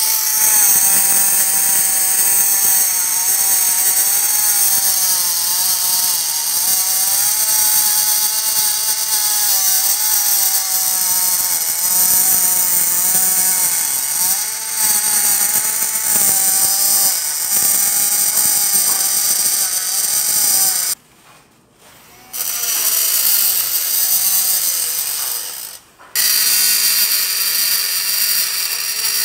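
Small handheld electric engraving pen running with a whine, its bit grinding a design into the black-finished brass bell of an alto saxophone; the pitch wavers as the bit bites, over a high grinding hiss. It stops twice: for about a second around two-thirds through, and for a moment a few seconds later.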